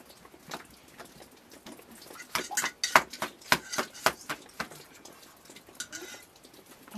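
Irregular sharp taps and clicks, a quick flurry of them in the middle, the loudest about three seconds in, with a few scattered ones before and after.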